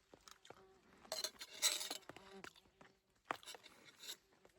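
Eating noises from someone chewing cooked frog meat close to the microphone: soft chewing with small clicks, a crackly burst about a second in, and a sharp click a little after three seconds.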